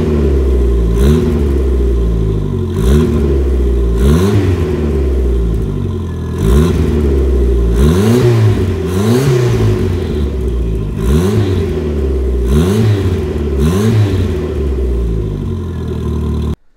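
Ford Fiesta RS Turbo's 1.6-litre turbocharged four-cylinder, heard at the exhaust tailpipe, running and being blipped repeatedly: the revs rise and fall about every one and a half seconds over a steady idle. The car is warming up on its first start after six months standing. The sound cuts off abruptly near the end.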